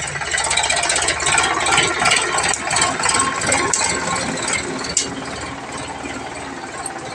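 Sonalika DI 745 III tractor's three-cylinder diesel engine running with a rapid, rattling diesel clatter. It is louder through the first few seconds and eases off after about five seconds.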